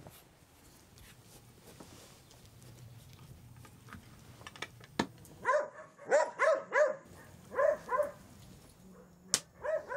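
Dog barking: two quick runs of short, high barks, about seven in all, starting halfway through after a faint quiet stretch and a sharp click.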